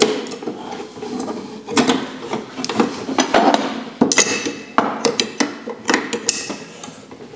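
Flat steel arbor wrenches clinking and clanking against the arbor nut and flange of a DeWalt 7492 table saw as the nut holding a sanding disc is tightened: a string of sharp metallic clicks and knocks about a second apart.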